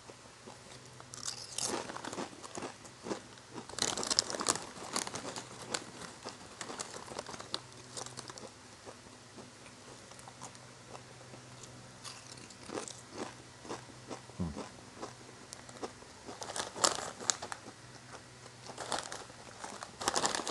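Crinkling and crunching from a bag of barbecue-corn tortilla chips being handled, in scattered crackly bursts with louder clusters about two and four seconds in and again near the end.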